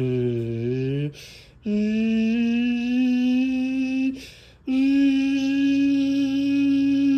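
Federal Signal Thunderbolt 1000B outdoor warning siren sounding a steady tone. In the first second the pitch starts low, dips, then climbs. The tone breaks off abruptly twice, about a second in and again past the four-second mark, for roughly half a second each time before coming back on.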